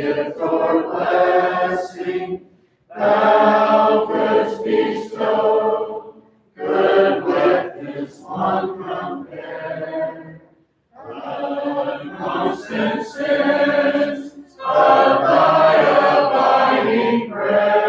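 Congregation singing a hymn a cappella, with no instruments, in long sung lines with short breaks for breath between them.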